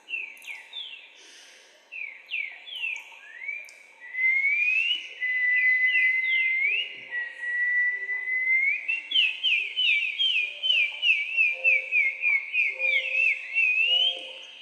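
Whistled melody: long held notes that glide up slowly, broken by many quick falling notes, with a quick run of falling notes about two-thirds of the way through.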